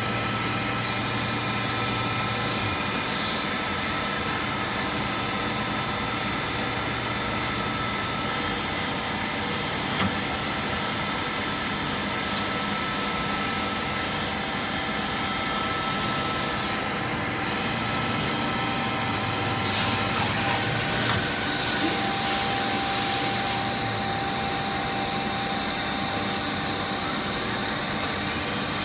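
Traub TNL 12 K CNC lathe running, a steady machine hum with several high, steady whines from its spindles and drives. About two-thirds of the way in, a few seconds of loud hissing. After that, a high beep-like tone repeats in short pulses.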